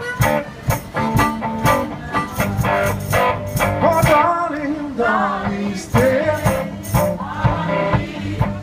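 One-man band playing a blues tune: strummed guitar over a steady beat of foot-worked percussion with a small tambourine, about two to three strikes a second. A wavering lead melody rides over it around the middle.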